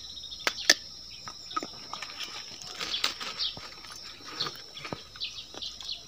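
Scattered crackling and rustling of dry leaf litter as someone shifts about on it, with a couple of sharp clicks about half a second in the loudest, over a steady high insect drone.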